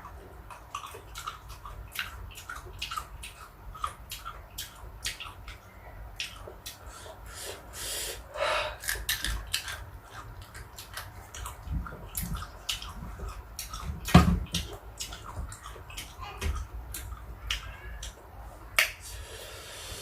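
A person chewing and biting fruit close to the microphone: a steady run of short crisp crunches and wet mouth clicks, with one louder thump about two-thirds of the way through.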